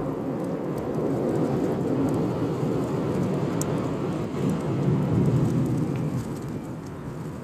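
Campfire burning: a steady low rush of flames with scattered small crackles and pops.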